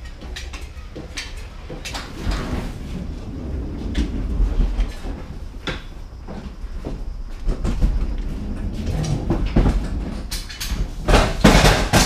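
Hand pallet jack rolling a loaded pallet along a truck trailer's floor: a low rumble of the wheels with rattles, clicks and knocks, ending in a louder clattering stretch near the end.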